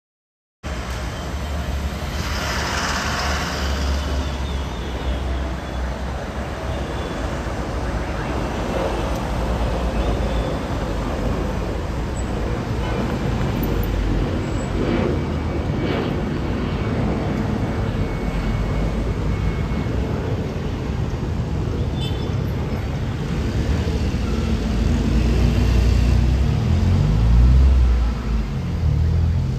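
Avianca Airbus A320-214 passing overhead in its climb after takeoff, its CFM56 turbofans giving a steady rumbling jet noise that grows somewhat louder near the end.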